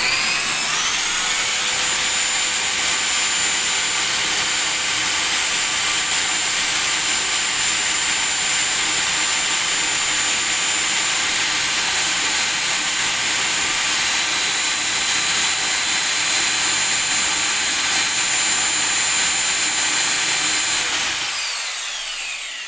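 Power drill running at full speed, driving a washing-machine motor rebuilt with neodymium magnets as a generator. It is a steady high whine over noise that winds up in pitch in the first second, then winds down and fades near the end.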